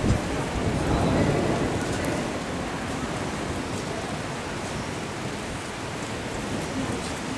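Rain falling steadily on a stone-paved courtyard, an even hiss that swells slightly about a second in.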